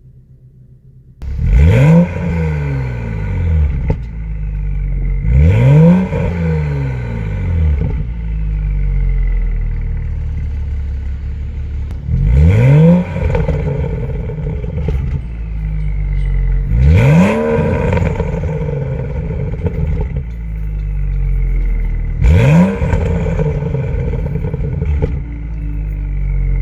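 BMW N55 turbocharged inline-six exhaust, with a catless downpipe and the stock resonator and muffler, blipped five times from idle: each rev is a quick rise and fall in pitch before settling back to a steady idle. The sound comes in suddenly about a second in.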